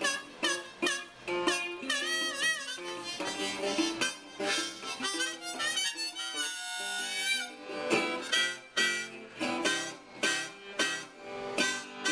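Blues harmonica in a neck rack playing a solo with bent notes over a strummed resonator guitar keeping a steady rhythm.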